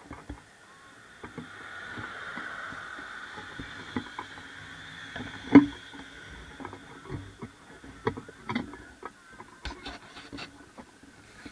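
Locomotive-hauled passenger train rolling past: a steady rush of wheels on rails that swells in about a second in and fades after about eight seconds. One sharp knock, the loudest sound, comes in the middle, with scattered clicks throughout.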